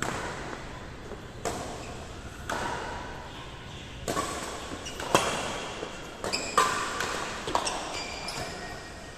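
Badminton racket strings striking a shuttlecock in a rally, about one sharp hit a second, echoing in a large hall. A few short high squeaks are mixed in near the end.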